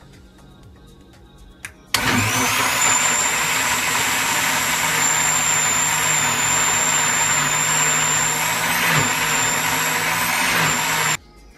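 Electric countertop blender switched on about two seconds in, running steadily with a high whine as it blends avocado with coconut milk and water into a smooth shake, then switched off abruptly after about nine seconds.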